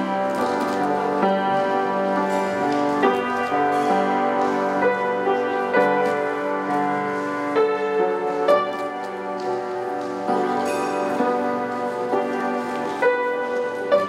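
Grand piano playing a solo piece, single notes and chords struck one after another and left ringing.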